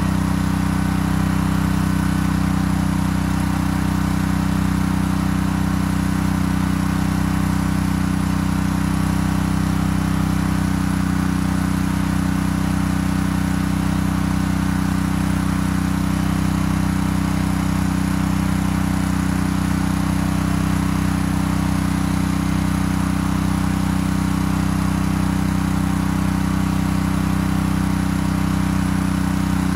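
Honda gas pressure washer's single-cylinder four-stroke engine running at a steady speed after being started.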